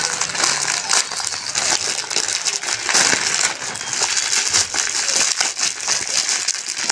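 A plastic parcel mailer bag and its clear plastic inner wrapping being crumpled and pulled open by hand: a continuous crinkling with many small crackles.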